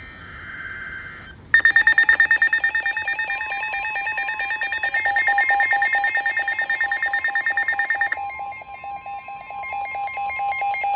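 The last burst of an Emergency Alert System digital header, a short buzzy screech of data tones. About a second and a half in, the EAS attention signal starts: a loud, rapidly pulsing electronic alert tone made of several steady pitches.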